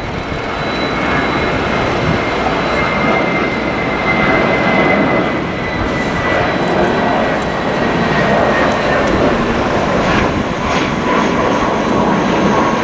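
Jet engines of a climbing Airbus A320 airliner running at climb power: a steady, loud rushing noise with a thin high whine that slowly falls in pitch.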